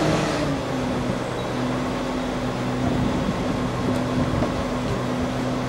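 Mobile crane's diesel engine running steadily. Its note drops about half a second in and then holds.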